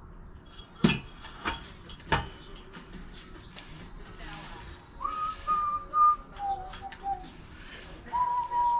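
Three sharp knocks in quick succession about a second in, then from about halfway someone whistling a slow tune of a few long held notes, stepping down in pitch and back up.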